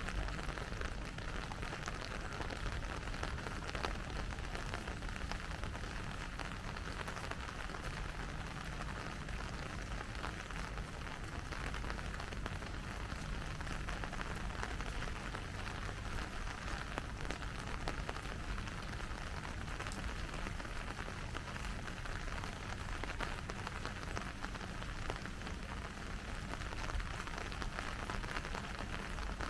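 Steady rain falling, an even hiss dotted with the fine ticks of individual drops.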